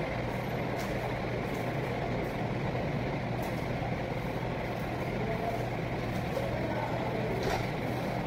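Steady mechanical drone of a commercial kitchen, with a few faint crackles of cling film as apples are wrapped by hand.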